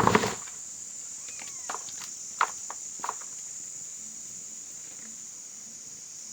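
Steady, high-pitched insect chorus. A brief loud noise comes right at the start, and a few sharp clicks and knocks follow in the first three seconds.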